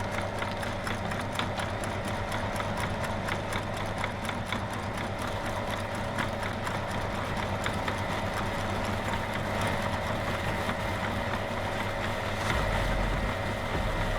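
Motor-driven meat grinder running with a steady hum while grinding Oreo cookies, with many small crunches and cracks as the cookies break up.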